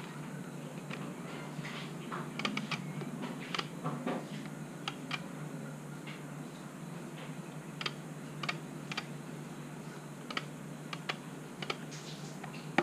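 Irregular small plastic clicks and taps as a Yamaha XTZ 125 speedometer housing is handled and a part at its side is fitted, over a steady low hum.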